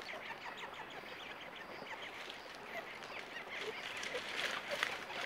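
A dense chorus of many short, quick animal calls, overlapping and getting louder near the end.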